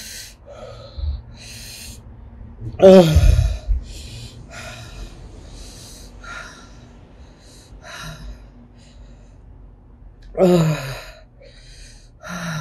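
A woman gasping and breathing hard against the burn of Carolina Reaper peppers, with sharp hissing breaths at intervals and two groaning cries falling in pitch, a loud one about three seconds in and another near the end.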